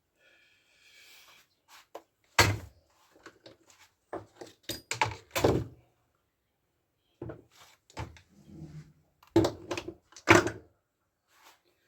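Irregular knocks and clunks of hard parts being handled while working on a petrol brushcutter's starter, the loudest about two and a half seconds in and twice near the end, with a short low scrape between them.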